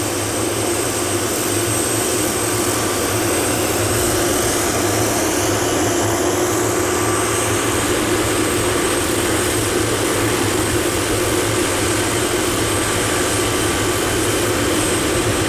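Helicopter engine and rotor running steadily, with a steady high whine over the top.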